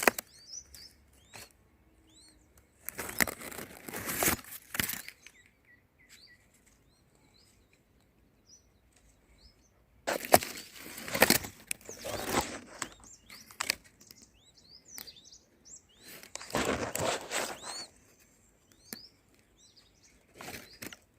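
Birds chirping in short, scattered high calls, with three bursts of loud scratchy rustling noise, each lasting one to three seconds.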